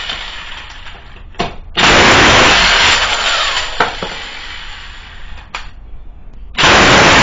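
Corded electric impact wrench spinning lug nuts off a wheel. It starts up loud about two seconds in and again near the end, and each run fades as the motor winds down. A few short clicks fall between the runs.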